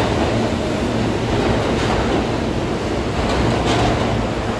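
New York City subway train running along the station platform, a steady loud rumble with a few sharp clicks of the wheels over the rail joints.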